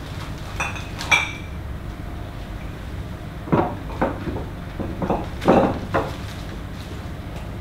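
A few light clinks and knocks of small objects handled on a table: two ringing clinks about a second in, then a run of knocks a couple of seconds later, over a steady room hum.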